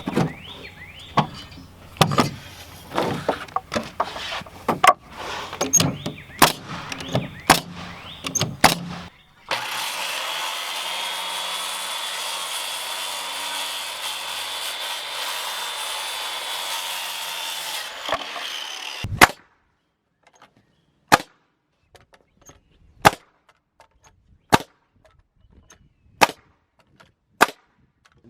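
Wood-framing work on a 2x12-and-plywood header. First comes a run of irregular knocks and clatter of lumber. Near the middle a power saw makes one steady cut of about nine seconds, with a high, level whine. After that come sharp single nailing strikes about every second and a half.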